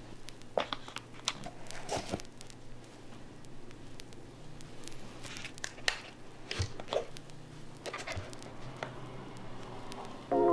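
Hands handling small keyboard parts at a workbench: irregular light clicks, taps and rustles, a dozen or so spread unevenly, over a faint steady hum.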